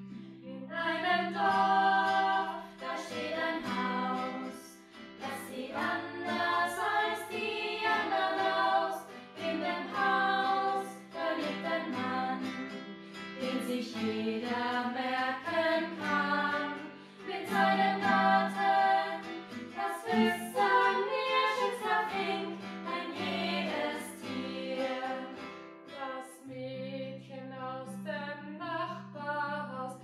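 Female voices singing a song in German, over held instrumental chords.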